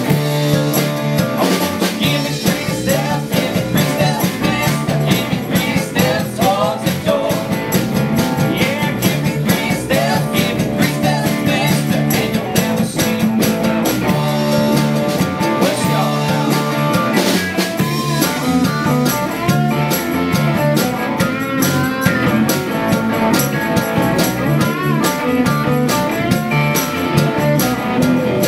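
Rock band playing live: acoustic and electric guitars, electric bass and a drum kit keeping a steady beat.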